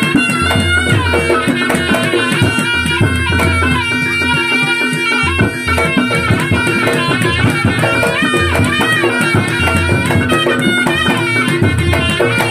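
Javanese reog ensemble music: a reedy shawm melody with bending pitches over drums and rattling percussion, with low drum strokes that come and go in a steady rhythm.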